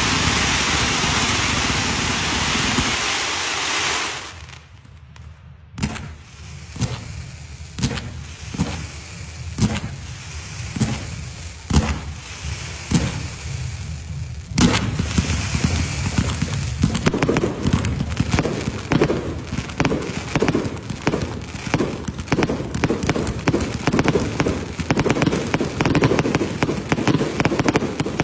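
Firecrackers going off: a steady hiss for about the first four seconds, then single sharp bangs roughly once a second, about ten of them, and from about halfway on a dense, rapid run of crackling pops.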